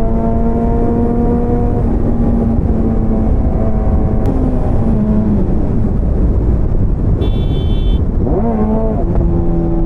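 Motorcycle engine running at steady cruising revs under heavy wind and road rumble. About seven seconds in a horn honks briefly, then the engine pitch quickly rises and falls.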